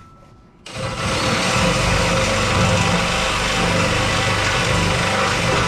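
A motor running steadily, coming in loud and even less than a second in over a wide noisy hiss.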